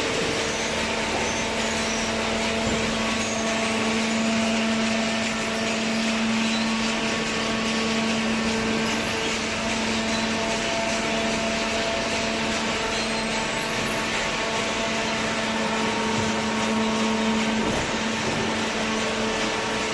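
Hydraulic vertical baler's electric motor and pump running steadily, a constant hum with a few held tones over machine noise.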